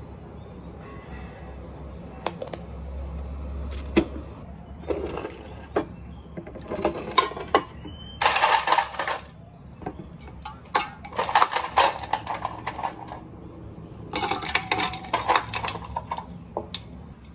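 Irregular clicks, taps and short stretches of clattering from a clear plastic food storage container with a clip lid and a glass of iced drink being handled and set down on a table.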